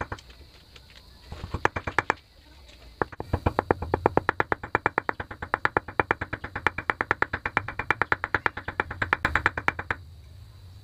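Hammer tapping rapidly on a metal socket used as a driver, seating a needle bearing into a Yamaha Mio Sporty scooter's torque drive. A short run of taps comes at the start and another just before two seconds in. A steady run of about seven taps a second follows from about three seconds in and stops about a second before the end.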